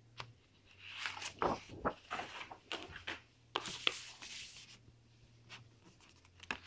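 Paper and card rustling and sliding as printed sheets and instruction booklets are handled in a plastic storage box, with a few light clicks and knocks. The rustling is busiest in the first half and dies down after about four and a half seconds.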